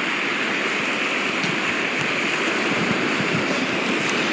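Ocean surf washing and rushing close by: a steady, loud hiss of breaking waves and moving water.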